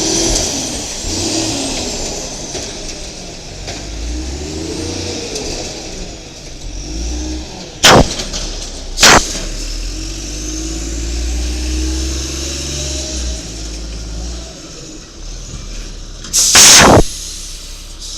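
Garbage truck's Cummins L10G natural-gas engine revving up and down while working, with two sharp loud bangs about a second apart midway and a loud half-second burst of hiss near the end.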